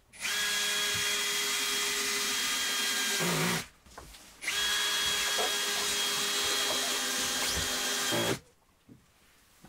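Cordless drill running at a steady speed in two long runs of about three and a half seconds each, with a short pause between.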